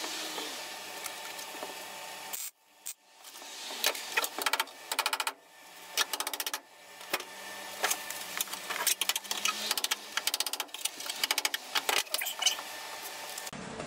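MIG welder tacking a metal patch panel onto a car body in several short bursts of fast, even crackling buzz with brief pauses between, mixed with a few hammer taps as the patch is tapped down.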